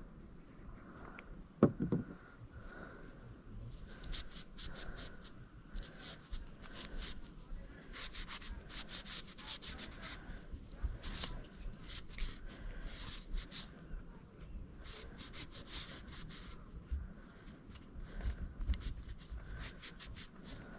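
A cleaning cloth rubbing oil onto the metal parts of a Ruger LCP Max pistol, in runs of quick scratchy strokes. A single knock sounds about two seconds in.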